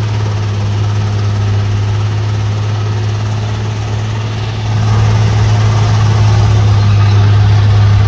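Heavy truck's diesel engine running under load on a steep climb: a steady low drone that grows louder about halfway through.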